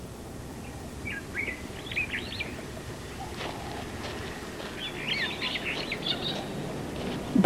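Wild birds chirping in two short bouts of quick, gliding calls over a steady background hiss of field ambience.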